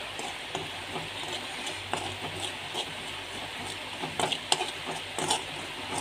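Steel spoon stirring and scraping a masala sauce around a frying pan, giving irregular scrapes and clinks over a steady sizzle of hot oil.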